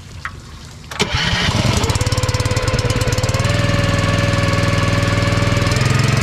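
Small gasoline engine on a Zeta 40P soft-wash skid started about a second in, catching at once and settling into a steady run, its speed stepping up slightly twice. It drives the pump that transfers chlorine into the mix tank.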